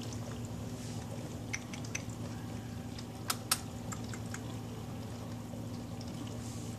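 Steady low hum with a handful of small, sharp clicks, two louder ones close together about three and a half seconds in.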